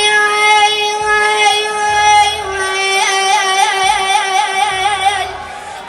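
A child singing one long held note in an Iraqi-style song, steady at first and then with a wavering vibrato from about three seconds in, breaking off shortly before the end.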